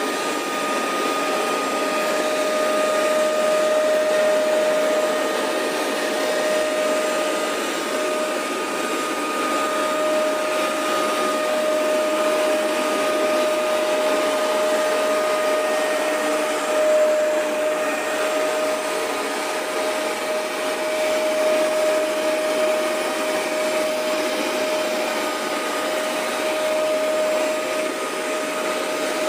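Hoover Max Extract 77 carpet deep cleaner running steadily on carpet: a steady motor whine over an even suction rush, swelling and easing slightly as it is worked back and forth.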